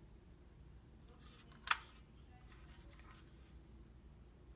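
Faint handling of a cordless impact wrench and its lithium-ion battery pack, with one sharp plastic click about a second and a half in.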